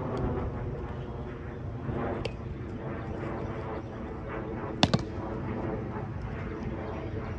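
Roundnet (Spikeball) ball in play: a light smack about two seconds in, then two sharp smacks a fraction of a second apart about five seconds in, as the ball is hit by hand and bounces off the net. Steady low outdoor noise underneath.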